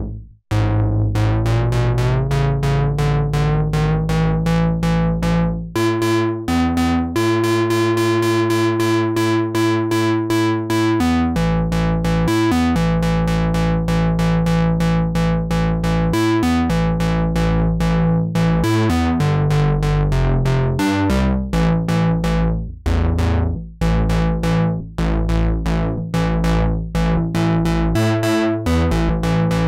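Behringer Model D monophonic analog synthesizer playing a fast pulsing run of short notes. Its pitch glides upward over the first few seconds, and its tone keeps shifting as the oscillator and mixer knobs are turned.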